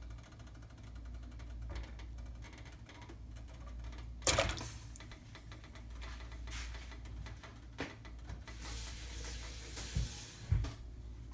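Cooking utensils against a pot: a sharp knock about four seconds in, then a few lighter clicks and a brief hiss near the end, over a steady low hum.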